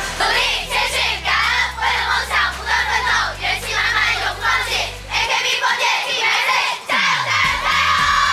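A group of young women shouting a team rally chant in unison, a quick run of short shouted syllables ('元气满满永不放弃… 加油 加油 加油'), ending in one long held shout as they throw their hands up. A low steady music bass runs under the first part and stops about five seconds in.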